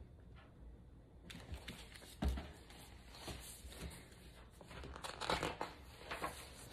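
Pages of a hardcover picture book rustling as they are turned, with a thump about two seconds in as the book is set down on a wooden table.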